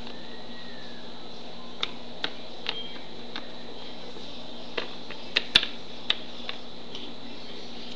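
Plastic toy animal figurines tapping and clicking on a wooden tabletop as they are moved and set down: about seven short, sharp taps at uneven intervals, over a steady webcam hiss.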